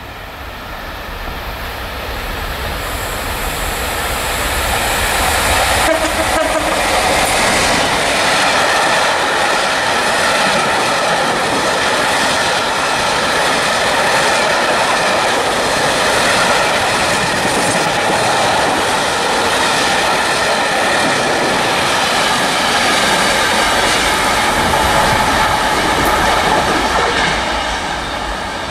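Diesel-hauled freight train of yellow open box wagons passing close by: the train's noise builds as the locomotive draws near, then a long, steady rumble and clatter of wagon wheels on the rails, easing off near the end.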